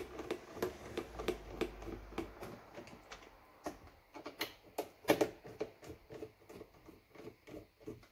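Screwdriver turning out screws from the plastic base of a Philips Senseo coffee machine: a run of small clicks and scrapes, with a few louder knocks about four to five seconds in.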